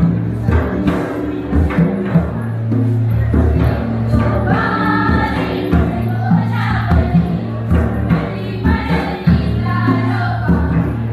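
Music with group singing over a steady drum beat and bass; the voices come in about four seconds in.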